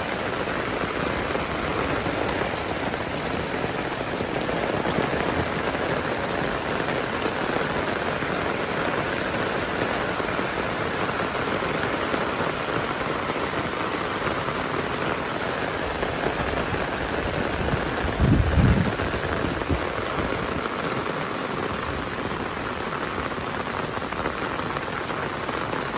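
Heavy rain falling steadily, with a brief low thump a little past the middle.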